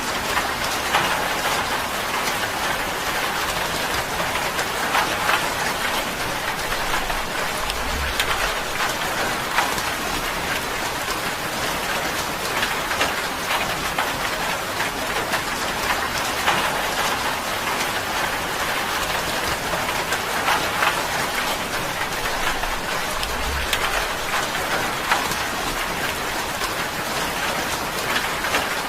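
Steady rain on a tin roof: a dense, even patter with many individual drops ticking sharply on the metal.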